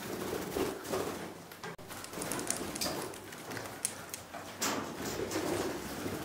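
Kakariki parakeets giving several soft, low calls, with scattered short clicks and taps.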